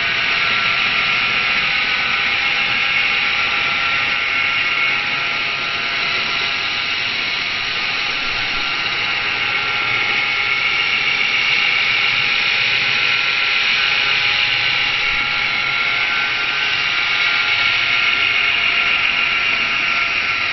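Kyosho EP Caliber M24 electric RC helicopter hovering: a steady high whine from its electric motor and spinning rotor. The whine eases slightly about five seconds in, then picks up again.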